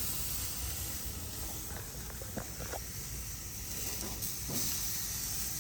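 Steady hissing and sizzling of rabbit meat cooking on a hot grill, with a few faint light clicks.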